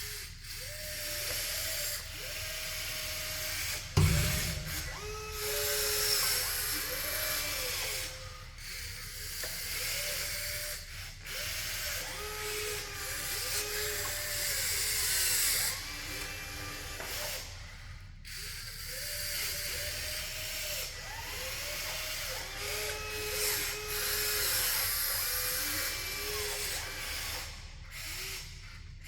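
Electric motors of radio-controlled construction machines whining in short spells, their pitch ramping up, holding and dropping as the machines move, over a gritty hiss. There is a sharp knock about four seconds in.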